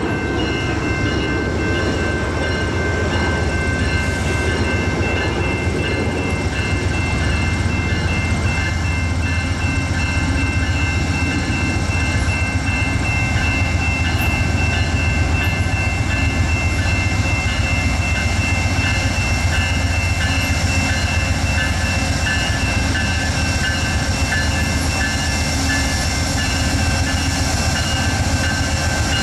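Amtrak GE Genesis diesel-electric locomotive rolling slowly toward the listener at the head of a passenger train: a steady low diesel engine rumble with a steady high whine over it.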